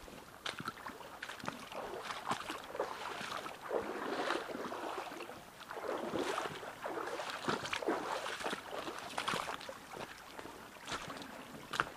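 A person wading through shallow stream water. The water sloshes around the legs in swells, one step every second or two, with a few small knocks among them.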